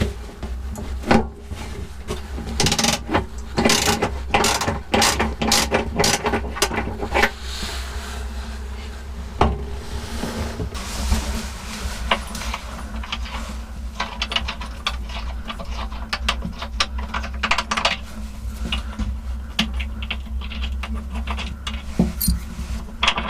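Irregular mechanical clicks and knocks, some in quick ratchet-like runs, over a steady low hum.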